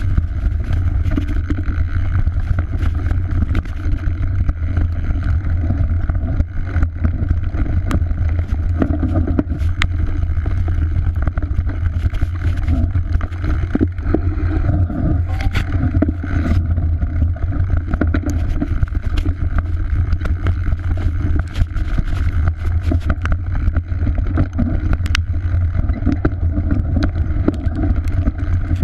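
Mountain bike ridden fast down a dirt forest trail, heard from a chest-mounted camera: a steady loud rumble of wind and tyre noise on the microphone, with frequent clicks and rattles as the bike hits roots and bumps.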